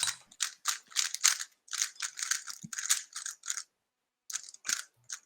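Plastic speed cube being turned by hand: a quick run of sharp clicks as its layers snap round, with a short pause about four seconds in.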